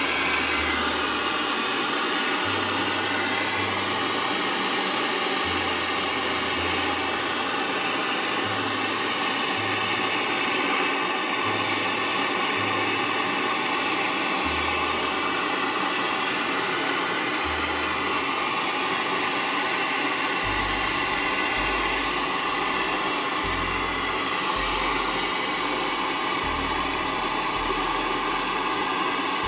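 Brazing torch flame hissing steadily as it heats a copper pipe joint on an air-conditioner compressor.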